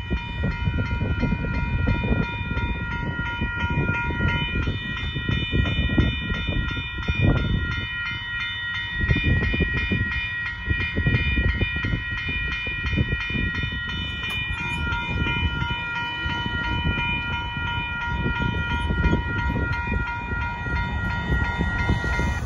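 BNSF intermodal freight train passing close by: a continuous rumble and rattle of wheels and cars on the rails. Over it the grade-crossing warning bell rings steadily.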